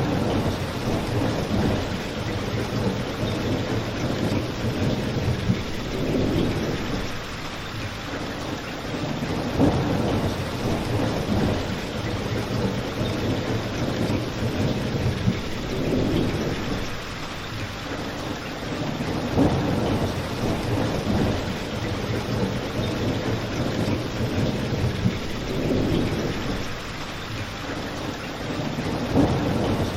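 Steady rain mixed with a crackling fireplace: an even hiss of rain, low swells every few seconds and a sharp pop now and then.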